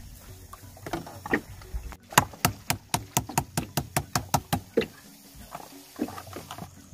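A quick run of about fifteen sharp knocks, roughly five a second, starting about two seconds in and stopping near the five-second mark, with a few softer knocks before and after.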